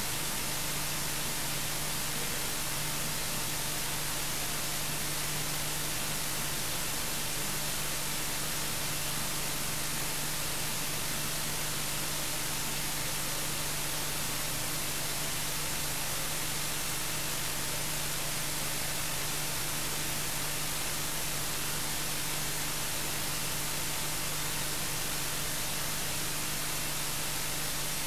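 Steady static hiss with a faint electrical hum underneath, unchanging throughout: the noise of the recording chain with no live sound on it.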